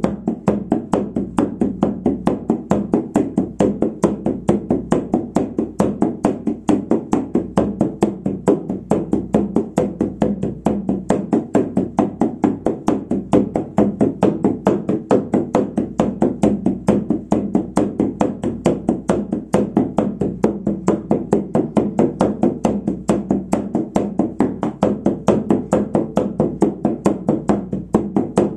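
Shamanic frame drum struck with a beater in a steady, even rhythm of about four beats a second, each beat a low, resonant thud. This is the monotone drumbeat used to carry a shamanic journey.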